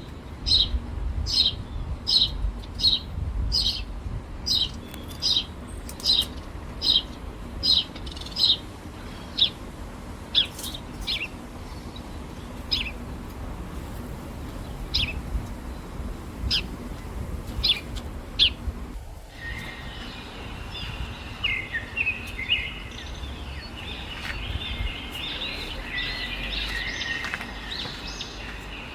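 Birds calling: a single short high chirp repeated about twice a second, thinning out to occasional calls; about 19 seconds in the sound changes abruptly to several birds chattering together. A low rumble runs underneath.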